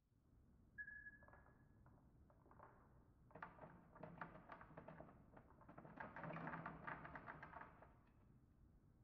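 Dry dog kibble tipped out of a bowl into a stainless steel sink: a faint run of many small clicks and rattles, densest around six to seven and a half seconds in. A brief high chirp sounds about a second in.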